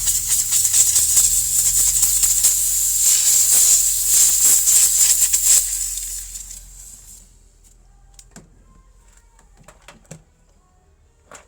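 Loud spraying hiss with a rapid rattling texture, dying away about six to seven seconds in, followed by a few faint clicks.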